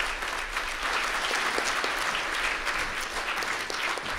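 Audience applauding: many people clapping steadily, as one even wash of claps.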